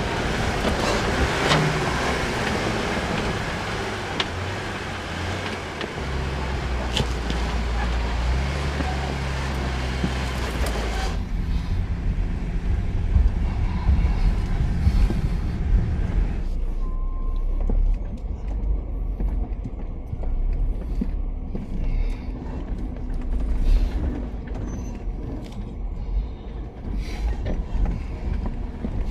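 Off-road vehicle's engine running low and steady as it crawls along a rough dirt trail. A broad hiss sits over it for the first eleven seconds or so and cuts off suddenly.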